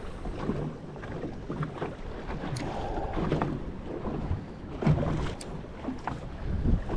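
Wind buffeting the microphone over choppy water lapping against a small boat's hull, with a few light clicks.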